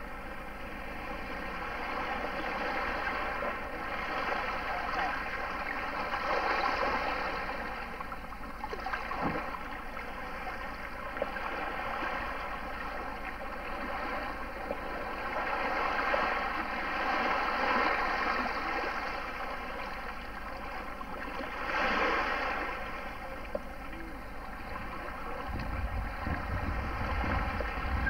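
Small waves washing and lapping at a boat ramp, swelling and easing every few seconds over a steady hum. Wind buffets the microphone near the end.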